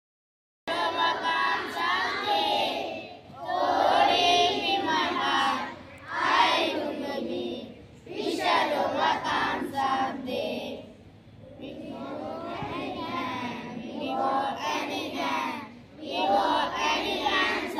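A group of children singing together in unison, in phrases of a few seconds with short breaks between them, after about half a second of silence at the start.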